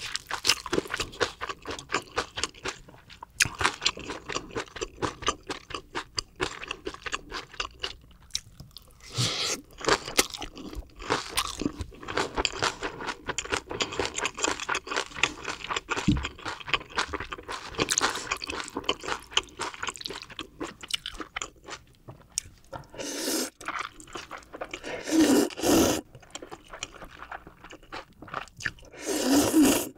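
Close-miked chewing of crisp, juicy kkakdugi radish kimchi: a dense run of quick wet crunches, broken by a few louder, longer noisy bursts, twice near the end.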